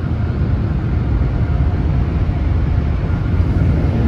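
Peco car wash tunnel dryers blowing a steady rush of air over the car, with a deep rumble underneath, heard from inside the car.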